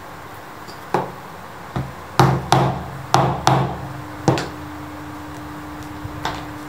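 A mallet knocking a hand tool down through leather onto a white punching board to punch holes: about seven sharp strikes, several in quick pairs, then two lighter taps near the end.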